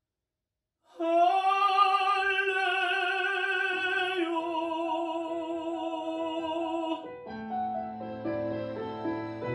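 A male singer holds one long, high sung note with wide vibrato over a backing track, coming in about a second in after a brief silence and moving to a lower note about halfway through. The voice stops about seven seconds in, and the instrumental backing carries on alone.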